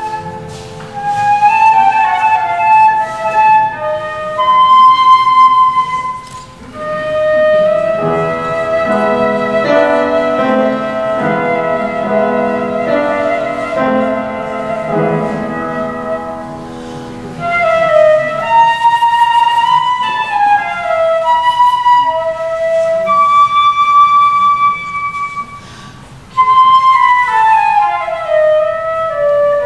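Live flute playing a classical melody over a keyboard-like accompaniment. The flute holds long notes with vibrato in places, and there are short breaks between phrases.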